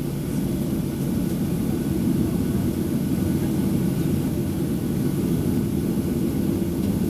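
Steady cabin noise of a Boeing 737-800 in flight: the drone of its CFM56-7B jet engines and the airflow, heard from inside the cabin as a low, even rumble with a few steady hums in it.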